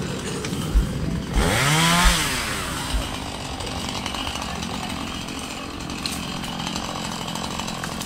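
Husqvarna two-stroke chainsaw revved once, its pitch rising and falling about a second and a half in, then running steadily. A few low thumps come near the start.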